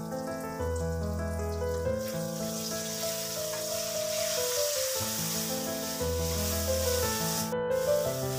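Instrumental background music with long held notes. From about two seconds in, a steady sizzle of buffalo liver and tomatoes frying in oil in a wok joins it as the pan is stirred.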